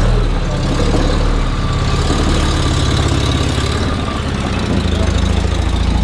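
Tofaş Doğan SLX engine running steadily at low revs while the lowered car creeps along at manoeuvring speed.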